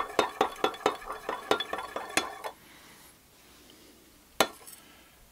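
Metal stirrer clinking against a glass measuring cup as colorant is stirred into heated liquid soft-bait plastic, at about four quick clinks a second. The stirring stops about two and a half seconds in, and one more sharp clink follows near the end.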